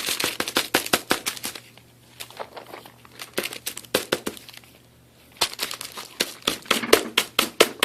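Plastic crinkling and crackling as mushrooms are pushed around inside a crock-pot liner. It comes in two spells of quick crackles, one at the start and a busier one from about five and a half seconds on, with only scattered crackles in between.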